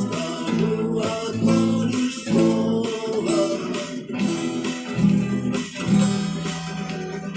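Acoustic guitar strumming chords in an instrumental passage, with no singing; the chords change about once a second.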